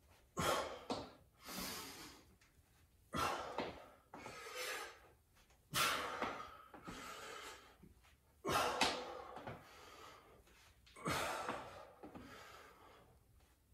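A man breathing out hard in sharp puffs, about eight times and one every one to three seconds, each starting suddenly and trailing off: exertion breathing during a cardio exercise.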